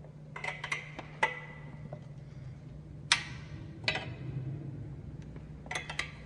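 Irregular clicks and knocks, some in quick clusters of three or four, the loudest about three seconds in, over a steady low hum.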